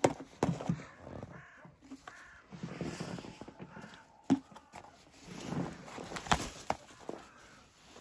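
Common raven striking and tugging at a thick winter glove in snow with its beak: a string of sharp, irregular pecks, the loudest about four and six seconds in, with rustling and crunching of snow in between.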